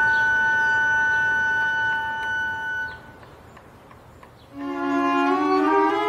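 Orchestral film score: a held chord of woodwinds and strings breaks off about halfway, leaving a short quiet gap with a few faint ticks, then the strings and winds come back near the end and slide upward together.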